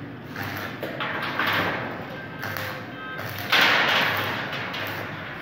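Electric arc welding on the steel bars of a gate grill: the arc crackles and sizzles in uneven spurts, loudest about three and a half seconds in, with music playing in the background.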